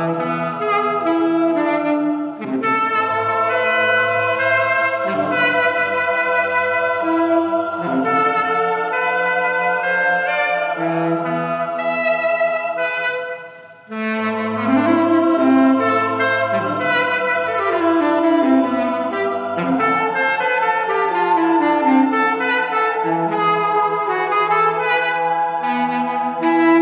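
Tenor saxophone playing a melodic line over sustained choir chords in a passacaglia. A little past halfway the music briefly fades almost away, then comes back in fuller and louder.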